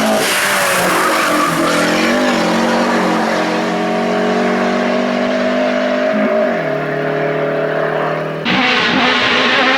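Hill-climb race car engine at high, steady revs, its pitch dropping about six and a half seconds in. The sound changes abruptly about a second before the end.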